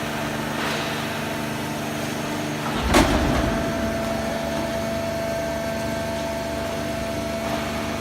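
Hydraulic horizontal baler running with a steady machine hum. About three seconds in there is a single loud clunk, and the hum then settles onto a new, higher steady tone.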